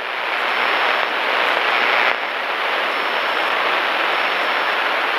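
Steady rushing noise inside a Cessna's cockpit in flight, even and without any clear engine tone, easing slightly about two seconds in.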